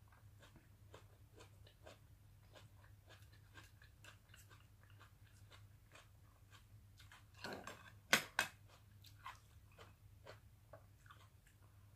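Close-miked chewing of a mouthful of sautéed cabbage and grilled meat: soft wet crunching and mouth clicks, with a few louder sharp clicks about eight seconds in, over a faint low hum.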